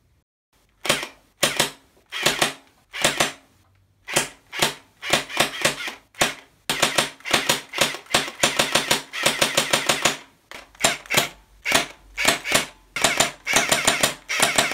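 Battery-powered, fully automatic Desert Eagle-style Hydro-Blaster gel ball blaster firing: a few single shots about a second apart, then repeated full-auto bursts of several shots a second, with a short pause near the middle.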